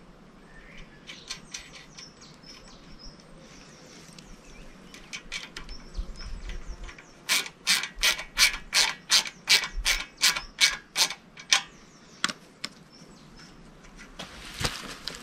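Ratchet wrench clicking in quick even strokes, about four clicks a second for several seconds, tightening the clamp that fixes a scythe blade to its snath.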